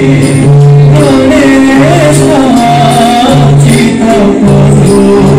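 Odissi dance music played loud over a loudspeaker: a wavering melody over repeated steady low notes and regular drum strokes.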